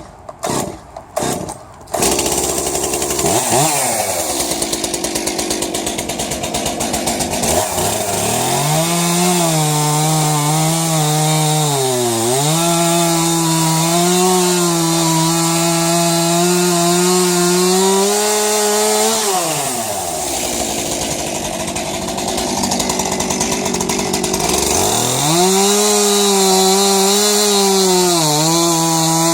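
Two-stroke chainsaw being pull-started with a few quick pulls and catching about two seconds in. It is then revved up and held at high revs for about ten seconds, drops back to idle, and is revved up again near the end.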